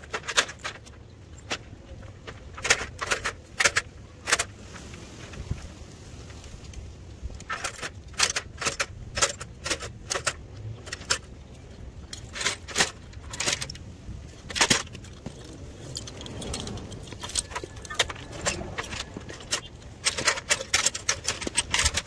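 Metal tools and hardware on a lineman's tool belt jangling and clinking in irregular clusters, with knocks against an extension ladder as he moves on it. Underneath is a steady low rumble of wind on the microphone.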